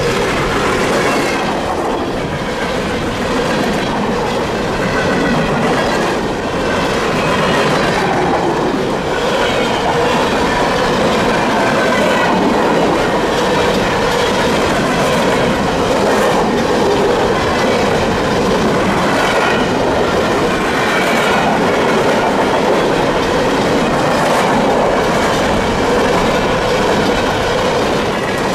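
A long freight train of open-top hopper cars rolling past close by, steady and loud: steel wheels clacking irregularly over the rail joints, with wavering high wheel squeal.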